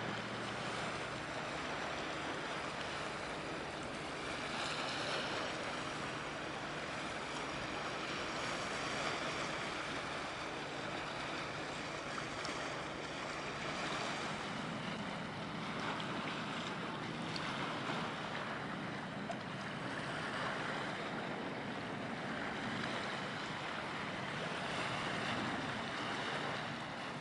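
Steady outdoor wind and water noise, with a faint low steady hum underneath.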